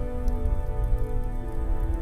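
Soft sustained ambient music with a crackling wood fire: a few sharp crackles over a low rumble of the flames.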